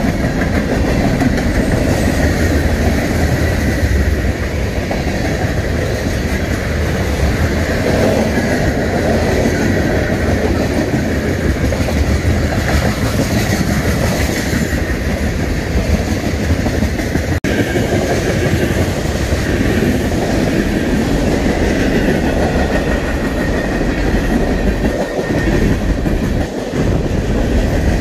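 Freight cars (tank cars and covered hoppers) rolling past close by: a loud, steady noise of steel wheels running on the rails.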